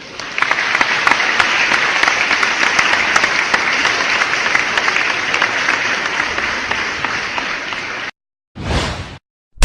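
Crowd applauding: a dense run of clapping that stops abruptly after about eight seconds, followed a moment later by a short, separate sound lasting about half a second.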